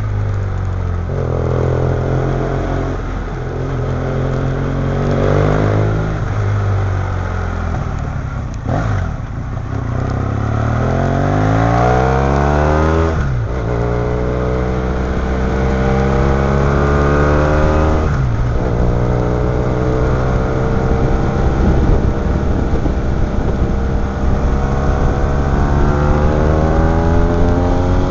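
BMW F800ST parallel-twin motorcycle engine heard from on board while riding: its pitch climbs as it accelerates, then drops back sharply at each gear change, several times over.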